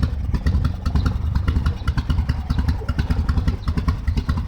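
Harley-Davidson Evolution V-twin idling very low with an uneven, loping beat, right at the edge of stalling.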